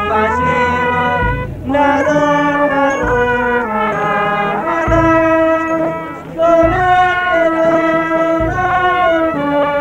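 Wind band music: a melody of held notes over a low bass note that sounds about every two seconds.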